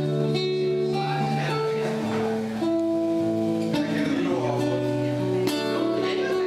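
Acoustic guitar music: a slow piece of long ringing notes over a low bass line that changes every second or two.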